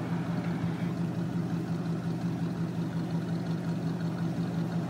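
Ford F-250 pickup's engine idling steadily.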